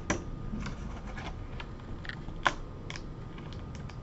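Plastic laptop screen bezel being pried off with a plastic pry tool: a series of small clicks and snaps as its clips let go, the sharpest about two and a half seconds in.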